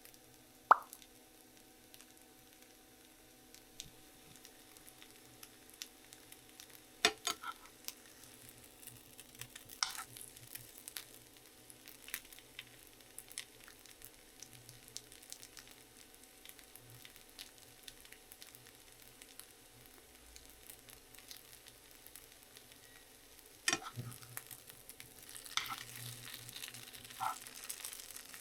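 Faint steady sizzling hiss, with a few sharp clicks and knocks scattered through it; the loudest knock comes about a second in, and more cluster near the end.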